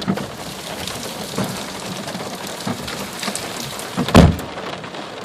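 Hail and heavy rain beating down, a steady hiss with many sharp knocks of single stones hitting; one louder thump about four seconds in.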